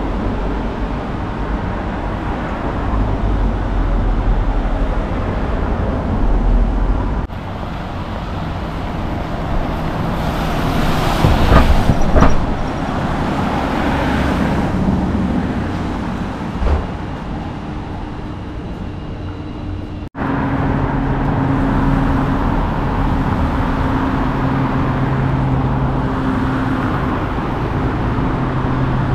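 Road traffic running steadily, vehicles passing with engines humming and one loudest pass about eleven seconds in; the sound breaks off abruptly and resumes twice.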